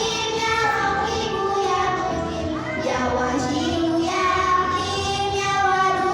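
Children singing a song over musical accompaniment, with long held notes that glide between pitches.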